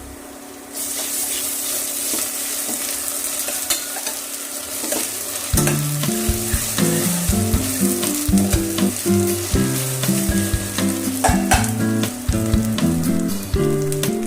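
Food frying in hot oil in a pan, a steady sizzle that starts about a second in, with scattered clicks from stirring. From about halfway through, a background music melody plays under it.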